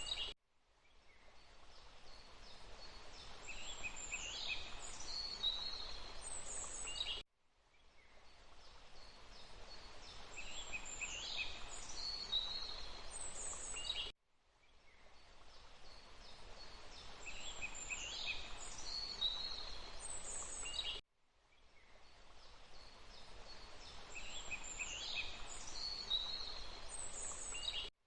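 Forest ambience: small birds chirping and calling over a steady hiss of running water. It is a short recording of about seven seconds played on a loop, so the same bird calls come back four times, each repeat cutting to silence and fading back in.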